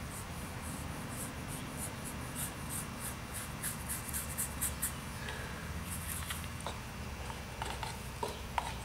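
Paintbrush scrubbing paint onto a model railway's scenery base: a quick run of short, scratchy strokes, two to four a second and getting faster, that thins out to a few scattered taps after about five seconds.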